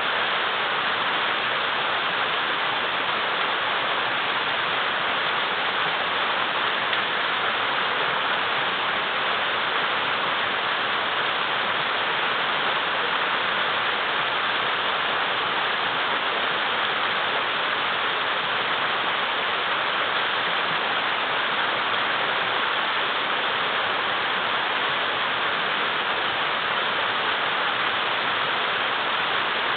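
River water rushing and splashing over large boulders, a steady unbroken roar of rapids.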